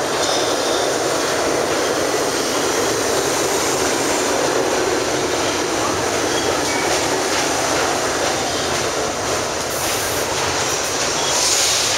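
New York City Subway R68 train pulling into an elevated station and running past: a steady rumble of steel wheels on rail with clickety-clack over the rail joints and a few brief faint squeals. A short burst of high hiss comes near the end.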